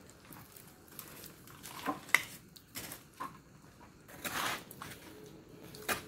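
Wet mud being packed and patted by hand around a bamboo pipe on top of a metal oil tin, with scattered scrapes and rustles and a sharp click about two seconds in.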